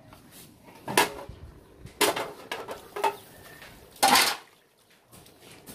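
Metal cooking pot and lid clanking: four sharp knocks and clinks about a second apart as the lid comes off the steaming pot and pieces of washed grasscutter meat go in.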